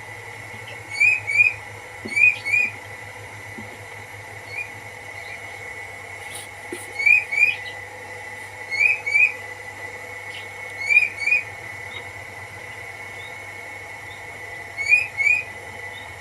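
Whistling duck giving two-note whistled calls six times, each a quick pair of short rising whistles. Under them runs a steady high tone and a low hum.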